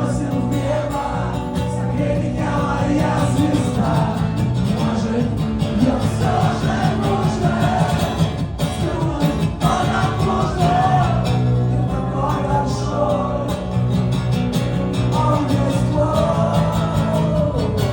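Live rock music: a band plays steadily under a male voice singing.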